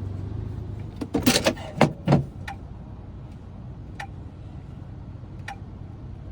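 A steady low hum fades out about a second in. A burst of clattering and clicking follows, which is metal key blanks and small tools being handled, then a few single clicks.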